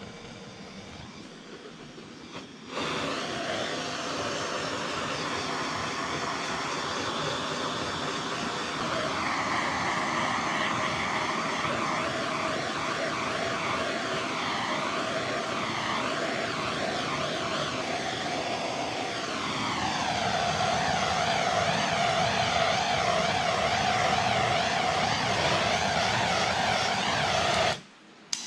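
Handheld gas torch on a green propane cylinder lit about three seconds in, its flame hissing steadily with a wavering tone as it is played over the wooden axe handle to scorch it.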